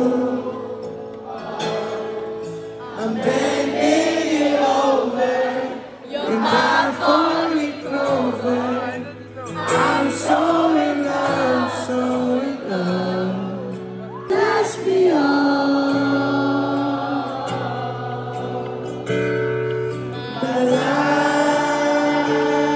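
Live concert music: a slow R&B song sung over held chords, the voice bending through long phrases.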